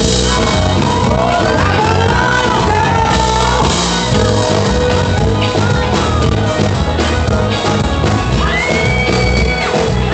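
A live sertanejo band plays loudly at a concert, heard as recorded from the audience, with voices shouting and singing over the music.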